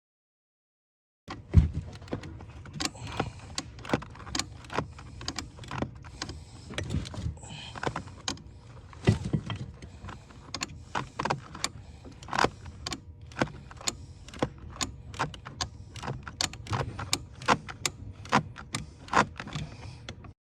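A 14 mm swivel-head wrench working a tight nut on a brake master cylinder: a run of sharp, uneven metal clicks and clinks, a few a second, starting about a second in.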